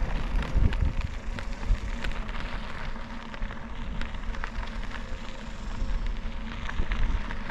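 E-bike tyres rolling over gravel at about 7 mph, a steady crunch with many small crackles, over a low rumble of wind on a helmet-mounted microphone.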